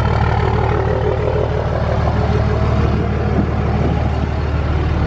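Straight-piped 5.9 L Cummins inline-six turbo diesel of a 2005 Dodge Ram 2500 running steadily at low revs, heard close by as the truck creeps along.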